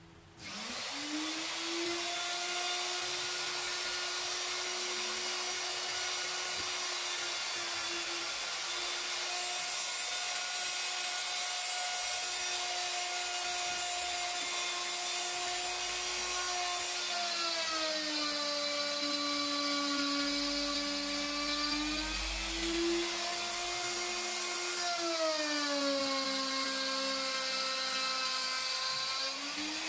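Electric plunge router switched on and spinning up, then running with a steady high whine as it routs a circular groove in MDF. Its motor pitch sags twice under load as the bit is pushed through the cut, recovering near the end.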